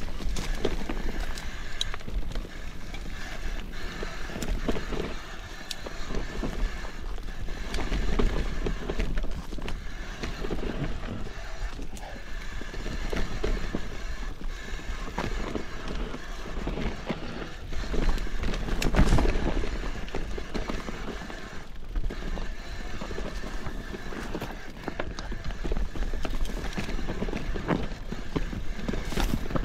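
Mountain bike descending a rough, stony trail: tyres rolling and crunching over rock and gravel while the bike rattles and knocks over the bumps, with a harder jolt about two-thirds of the way through.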